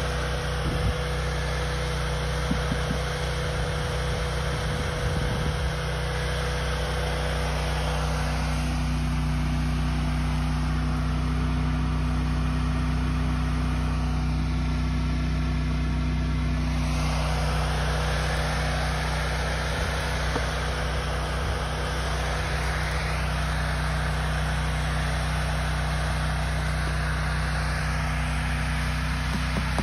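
Small engine running steadily at a constant speed, most likely the portable generator powering the mains-voltage oxalic acid vaporizer.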